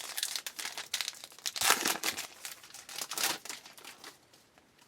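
Plastic wrapper of a trading-card pack being torn open and crinkled, a burst of crackling that is loudest about two seconds in and dies away near the end.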